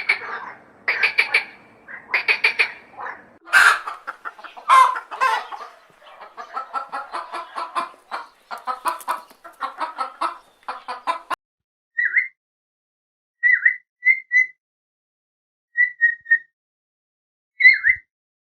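Animal calls: a long run of rapid, repeated calls, then after about eleven seconds a few short, separate calls with silence between them.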